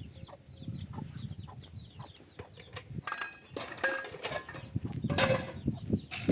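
Chickens: a run of short, high, falling peeps repeated several times a second, followed by a few sharp knocks.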